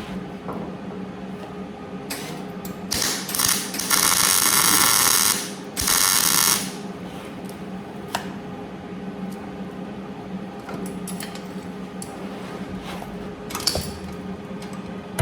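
Two short, loud bursts of a power tool hissing, about four seconds in and again about six seconds in, over a steady electrical hum, with scattered clicks and taps.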